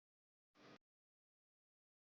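Near silence, broken once about half a second in by a brief, faint burst of noise lasting about a third of a second.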